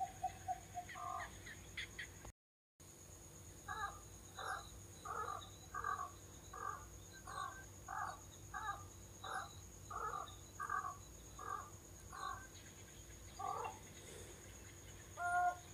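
An animal calling a long series of about fourteen evenly spaced short notes, roughly three every two seconds, starting about four seconds in and ending near fourteen seconds. One louder, clearer call comes near the end.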